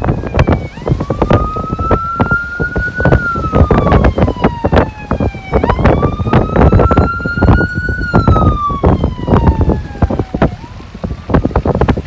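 Strong blizzard wind buffeting the microphone in heavy gusts. Under it, an emergency vehicle's siren wails in slow sweeps, each climbing for about two seconds and then sliding down for about two and a half, repeating twice and starting again near the end.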